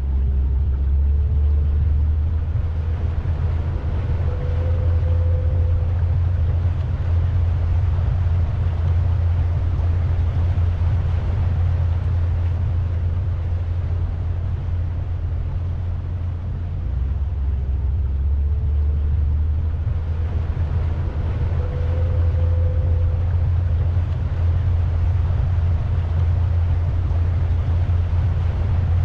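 Pontoon boat cruising: a steady low rumble that eases slightly about halfway through and then builds again.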